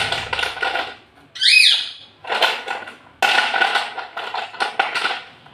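Loose slate pencils clattering against each other and a plastic plate as hands sort through the pile, in three bursts of rapid clicking. About a second and a half in, a brief high squeak rises and falls.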